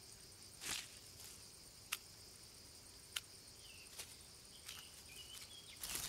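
Faint outdoor ambience of insects chirring steadily at a high pitch. A soft swish comes under a second in, a handful of sharp ticks are scattered through it, and a few faint short chirps come in the second half.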